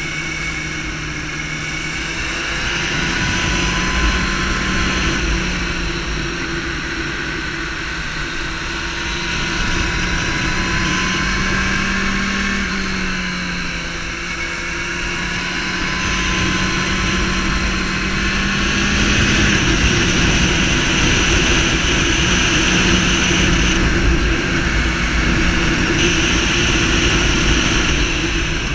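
Sport motorcycle engine running at road speed through curves, its note stepping up and down with throttle and gear changes, under heavy wind noise rushing over the bike-mounted microphone. The wind noise grows louder about halfway through as the bike speeds up.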